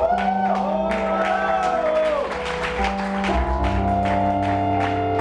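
Live band playing a slow song: held keyboard chords under a gliding melody line, with percussion ticking about four times a second; a low bass note comes in about three seconds in.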